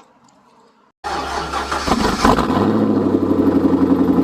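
After about a second of near quiet, a C5 Corvette's V8 is cranked by its starter and catches a little over two seconds in. It then settles into a steady idle with an even, pulsing beat.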